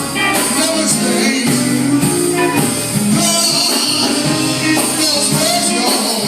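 Gospel song with singing over instrumental accompaniment, playing continuously and loudly.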